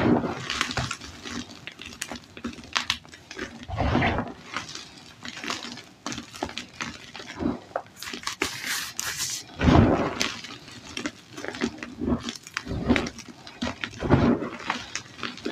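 Dyed gym chalk being crushed and pressed by hand, its crumbly chunks crunching and crumbling in irregular bursts, with a few louder crunches among softer crumbling.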